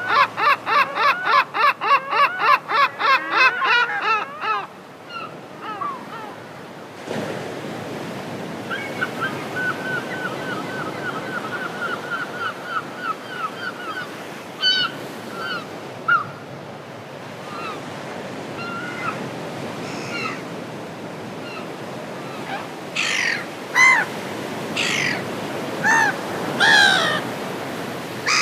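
Gulls calling: a fast, loud run of repeated laughing calls that stops about four seconds in, then a quieter steady string of calls over a hiss of water, and louder single falling calls near the end.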